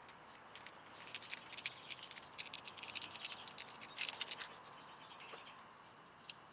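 Hands working plastic wiring: electrical tape pulled off the roll and wrapped around corrugated wire loom, giving scattered light crackles and clicks that are densest in the first half.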